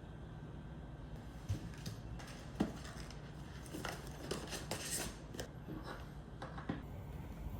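Small hard plastic clicks and taps with light rustling from handling blind-box packaging and figure pieces, scattered through, the sharpest about a second and a half and two and a half seconds in and a quick run of them about halfway.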